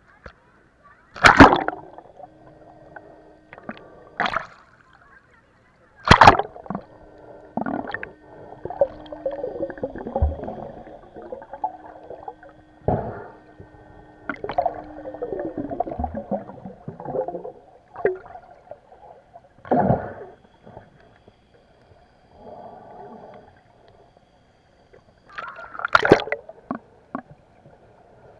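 Sea water sloshing, gurgling and splashing around an action camera's waterproof housing as it moves between the surface and just underwater. Four loud splashes or knocks stand out, and a faint steady hum comes and goes in the first half.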